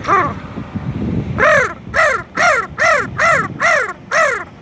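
A man imitating a crow's caw with his voice, gargled from the back of the throat: after a brief call right at the start, a run of seven short, sharp, punctuated caws begins about a second and a half in, about two a second, each rising then falling in pitch.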